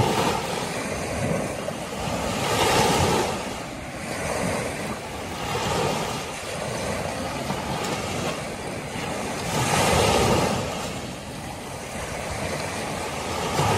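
Small Gulf of Mexico waves breaking and washing up a sand beach. The surf swells and eases every few seconds, loudest about three seconds in, again near ten seconds and at the end.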